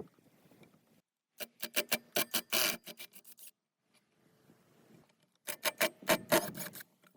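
Quick rasping, scraping strokes of a hand tool working metal, in two bursts of several strokes each with a pause between.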